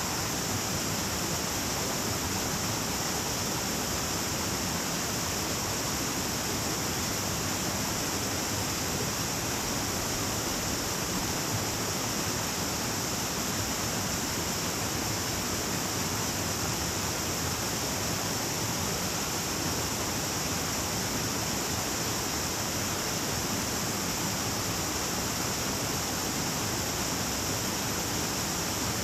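A small stream rushing steadily over rocks, with a constant high hiss above it.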